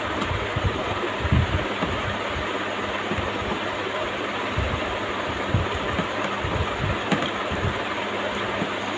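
Eating sounds, soft irregular low chewing and food-handling thumps with a few faint clicks, over a steady background hiss.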